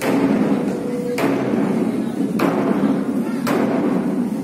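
A drum struck in an even, slow beat, about one stroke a second, over a continuous low drone.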